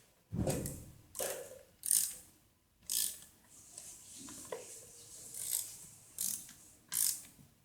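Hand tools working the bolts of a tractor clutch assembly: a series of short metallic ratcheting and scraping strokes, roughly one a second, as the bolt holding the clutch springs compressed is turned.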